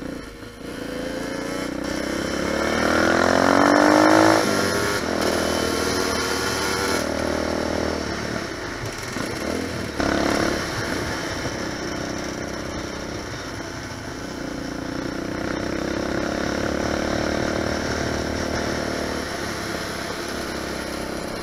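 Lifan 250 four-stroke pit bike engine revving hard under way, with a two-stroke Yamaha YZ125 running close by. The pitch climbs through the first four seconds, then drops at each gear change, and the engines run more steadily in the later part.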